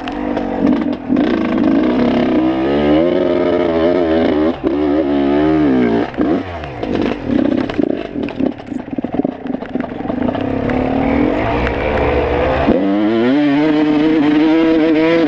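Suzuki dirt bike engine heard from on the bike, revving up and down with the throttle as it rides a rough trail. The revs drop lower and choppier midway, then climb sharply near the end and stay high on a hill climb.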